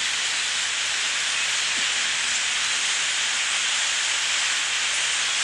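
A flock of thousands of blackbirds in flight, their massed wingbeats and calls blending into a steady, even hiss.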